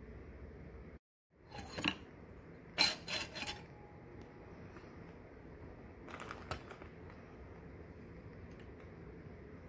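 Sharp metallic clinks and knocks of small engine parts being handled during a Honda Grom engine teardown. The loudest comes about two seconds in, a quick cluster follows around three seconds, and a few lighter ones come near six and a half seconds, over a faint steady hiss.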